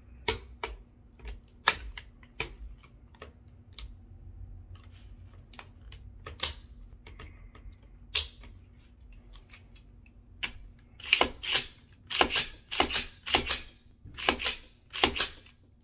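Metal clicks and clacks of an AR-15-style pistol being assembled by hand, the upper and lower receivers fitted together. Scattered light clicks at first, then from about eleven seconds in a run of louder, sharp clacks in quick clusters.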